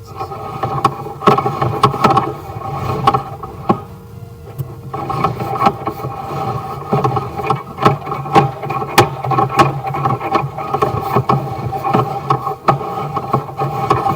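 A machine running steadily, with irregular clicks and knocks; it drops back for about a second and a half before the fourth second, then runs on.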